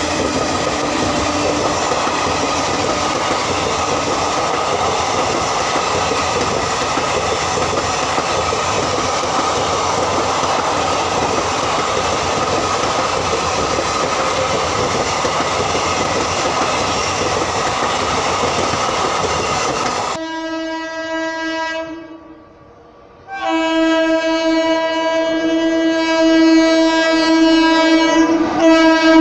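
Passenger train coaches rolling past close by, a steady loud rumble and rattle of wheels on rail. About twenty seconds in, an electric locomotive's horn sounds a short blast, breaks off, then a long blast that drops in pitch near the end as the locomotive draws near and passes.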